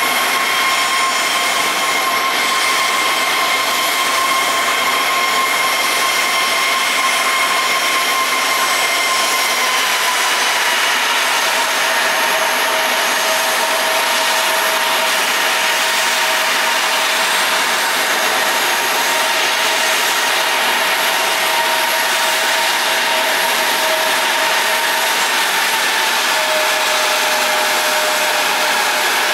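CRJ-900's rear-mounted GE CF34 turbofans idling with a loud, steady jet whine over a rushing hiss. The whine steps slightly lower in pitch about ten seconds in and again near the end.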